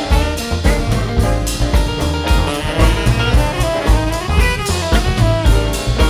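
A jazz band playing live: a section of saxophones plays together over drum kit and bass.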